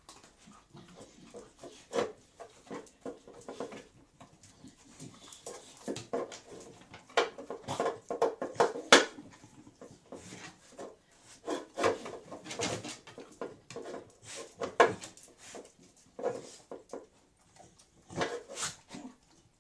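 Two beagles feeding, heard as irregular clusters of short clicks and knocks from eating and sniffing, loudest about halfway through.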